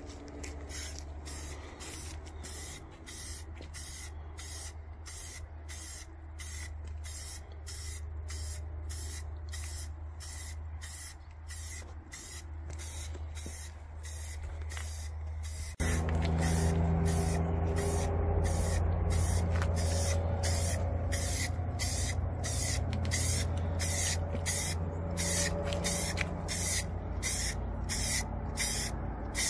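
Aerosol spray-paint can hissing out black paint in short, evenly repeated bursts, about two a second. It gets louder about sixteen seconds in.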